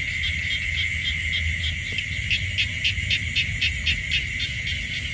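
Night chorus of insects: a steady high drone with a rhythmic pulsing call repeating about four times a second, over a low rumbling noise.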